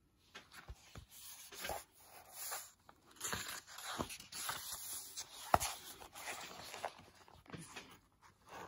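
Rustling and scraping of a book's paper pages being turned while the handheld phone is moved about, with scattered clicks and one sharp knock about halfway through.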